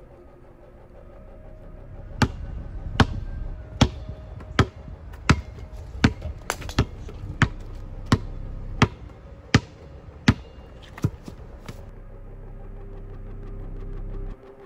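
A basketball being dribbled on a concrete driveway, about thirteen even bounces a little under a second apart. Underneath, a low rumble builds steadily and cuts off suddenly near the end.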